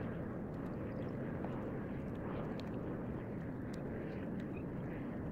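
Steady low rumble of wind buffeting the microphone, with a few faint ticks.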